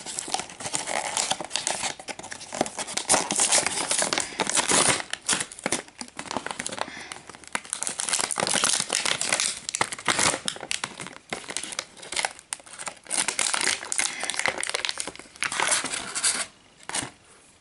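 Clear plastic toy packaging being pulled open and handled by hand: irregular crinkling, crackling and tearing of stiff plastic, easing off near the end.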